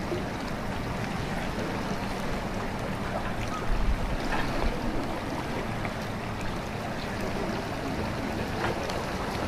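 Steady wash of wind and water, with a stronger gust buffeting the microphone about four seconds in.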